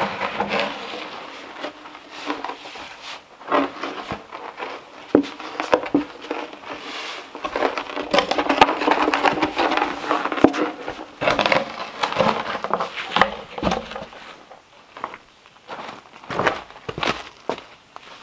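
Wooden barrel rolled on its side across gravelly dirt, a rough rolling scrape with scattered knocks, densest a little past the middle. Footsteps on gravel follow near the end.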